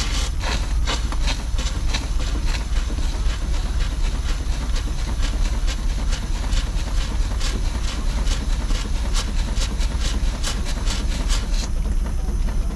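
A.D. Baker 21-75 steam traction engine running, its exhaust chuffing in a steady beat of about three strokes a second, with a hiss of steam over a constant low rumble.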